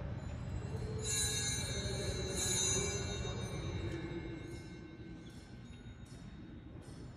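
Altar bells shaken in two bright peals about a second apart, the ringing fading away afterwards, marking the elevation at the consecration of the Mass.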